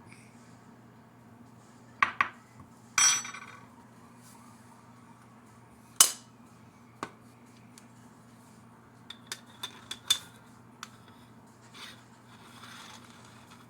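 Metal kitchenware being handled, plausibly the parts of a moka coffee maker: two quick knocks, a ringing metallic clank, then a single sharp knock, followed by a scatter of lighter clicks and taps.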